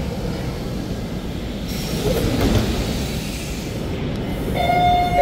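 Metro train running past on the rails, a steady rumble of wheels and motors with a hiss that rises about two seconds in. A steady electronic tone starts near the end.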